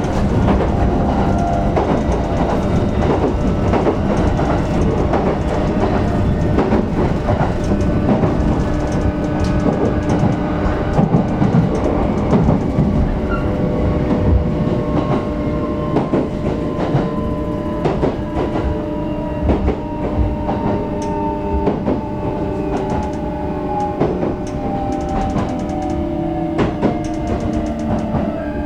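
JR E129 series train heard from inside the motor car: running noise and wheels clicking over rail joints. From about halfway through, the Toyo IGBT-VVVF inverter's whine glides slowly down in pitch as the train slows.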